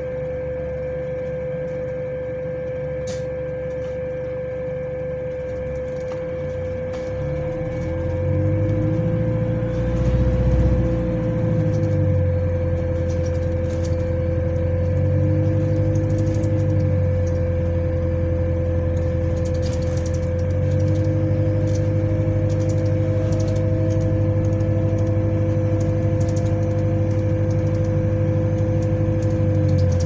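A steady whining tone from a fan on a hybrid double-decker bus, an odd noise to the rider, heard from inside the passenger saloon. Under it the bus's engine drone comes in about eight seconds in, eases off for a few seconds, then runs again to the end.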